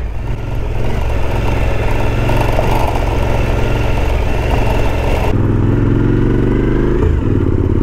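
Motorcycle engine running under way on a rough dirt track, with rattling and rushing noise over it. A little over five seconds in, the sound changes abruptly to a smoother, steadier engine note, which briefly drops in pitch and picks up again near the end.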